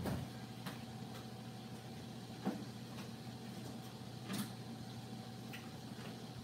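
Quiet kitchen room tone with a steady low hum, broken by a few faint scattered knocks and clicks of off-camera handling.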